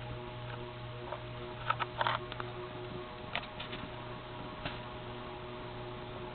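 Sierra Victorian Copy ceiling fan's motor humming steadily, with several steady tones over the hum and a few light clicks scattered through it.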